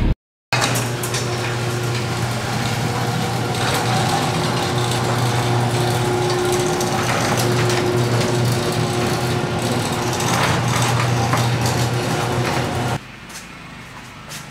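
Electric garage door opener raising a ribbed metal sectional shop door: a steady motor hum with the rattle of the door and its rollers, stopping abruptly near the end as the door reaches fully open.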